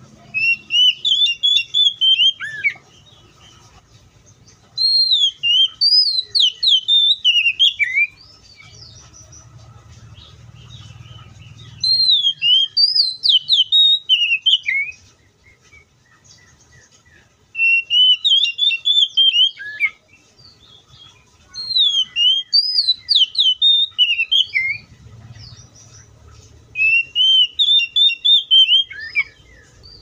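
Male oriental magpie-robin singing: six phrases of rapid, sliding whistled notes, each lasting two to three seconds, with short pauses between them.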